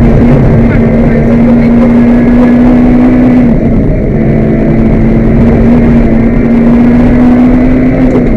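Peugeot 206 GTi rally car's four-cylinder engine running hard under load, heard from inside the cabin over the rumble of the tyres on gravel. The engine note climbs slowly and drops back about three and a half seconds in, then climbs and drops again near the end.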